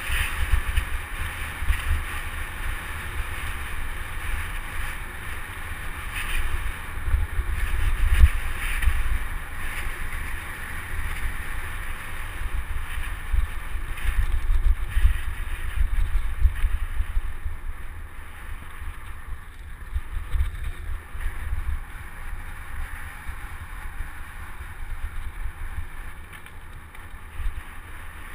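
Wind buffeting the microphone of a bike-mounted camera with a heavy rumble, under the steady hiss and rattle of mountain bike tyres rolling fast on a dirt and gravel road. The hiss eases somewhat in the second half.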